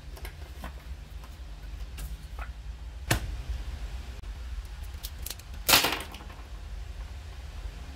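Pens and a folded sheet of paper being set down on a table: scattered light clicks and taps, the loudest a short clatter about two-thirds of the way through, over a steady low rumble.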